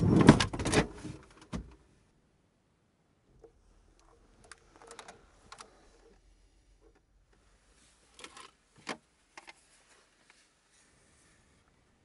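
Rustling and small knocks of people moving about inside a car, loudest in a brief cluster at the start, then a few faint clicks and shuffles.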